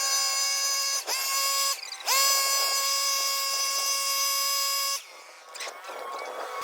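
Electric power tool motor running with a high, steady whine. Its pitch dips twice near the start and recovers each time, and the tool cuts off about five seconds in.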